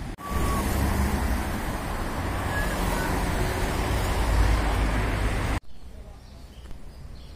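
Road traffic: cars passing on a busy street, a steady rush of engines and tyres. It cuts off suddenly about five and a half seconds in, leaving a much quieter street hum.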